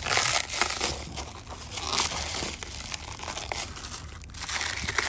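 Plastic stretch wrap crinkling and tearing as it is pulled at by hand, in irregular bursts.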